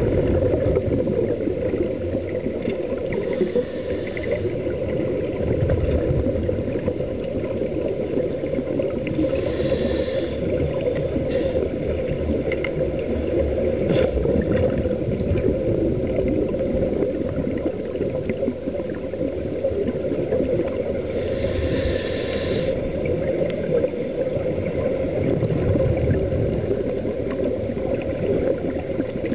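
Underwater sound heard through a camera housing: a steady low rumbling noise, with a scuba regulator exhaling bubbles in short hissing bursts a few times, several seconds apart.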